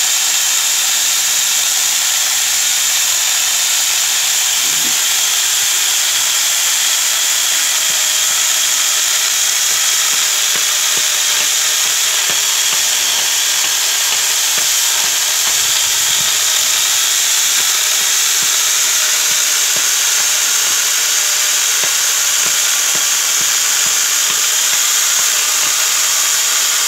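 Electric angle grinder fitted with a 12-inch chainsaw bar attachment, its chain cutting steadily through a log: a continuous, high-pitched hissing whine.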